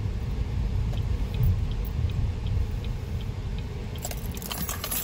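Steady low rumble of road and engine noise inside a moving car's cabin. About four seconds in, close rustling handling noise with light clinks starts up.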